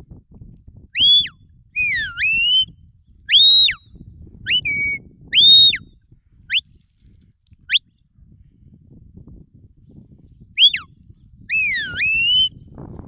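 Shepherd's whistled commands to a working border collie: a run of sharp, high whistle notes, some quick upward flicks and some falling-then-rising swoops. A pause of a few seconds comes after the first cluster, then two more whistles near the end.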